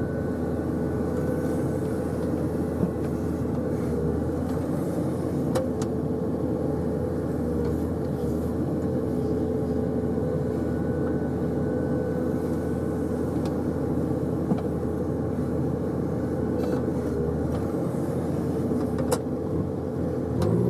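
Diesel engine of a JCB 3DX backhoe loader running steadily at a constant speed, with a few brief sharp knocks.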